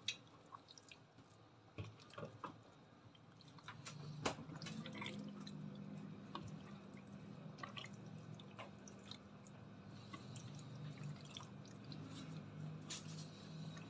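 Wet squelching and scattered light clicks as yogurt-coated chicken pieces are stirred with a spatula in a plastic tub. A low steady hum comes in about four seconds in.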